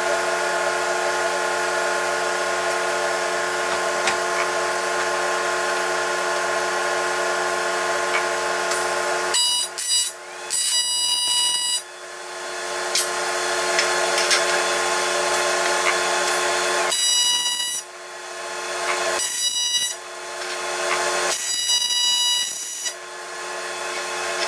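TIG welder arc buzzing steadily while tack-welding aluminium intake runners to their flange. The buzz breaks off briefly about four times and comes back each time, growing louder as the heat is ramped up.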